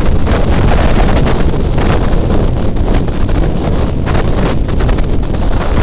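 Wind buffeting the microphone over the steady running noise of a train moving at speed, loud throughout with many quick gusts.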